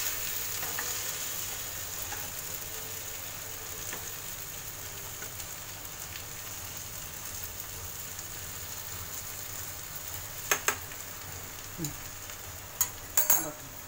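Ivy gourd and potato sizzling steadily in a pan as they are stirred. Near the end come a few sharp knocks of the utensil against the pan.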